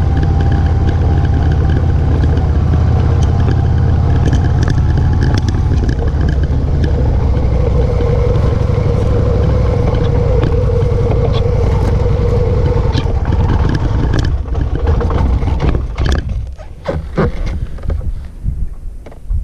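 Motorcycle engine running steadily under way on a rutted dirt track. About fourteen seconds in, the steady engine note falls away and the sound breaks up into uneven rattles and knocks.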